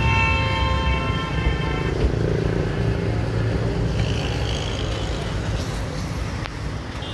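Road traffic running past with a steady low engine rumble; a vehicle horn is held for about two seconds as it begins.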